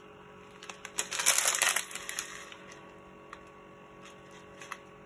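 A plastic strip of sealed diamond-painting gem packets crinkling as it is handled, with the small gems inside rattling and clicking. The main rustle comes about a second in and lasts under a second, followed by a few faint clicks.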